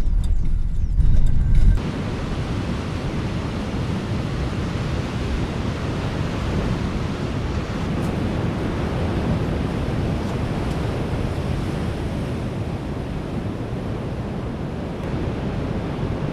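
Steady rushing noise of ocean surf on a coastal rock platform, with wind on the microphone. It opens with a car's low road rumble that cuts off about two seconds in.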